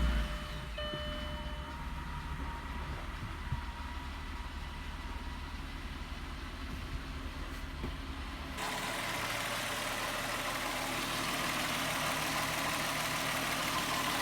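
A Volkswagen 12-valve VR6 engine idling steadily just after being started on fresh oil after an oil change, sounding nice. About two-thirds of the way through, the deep rumble drops away and a brighter hiss takes over.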